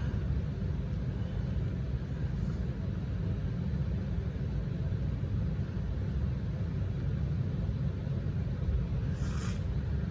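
A steady low rumble of background noise, and about nine seconds in a woman's single short, breathy inhale, the kind of hitch that comes before a sneeze.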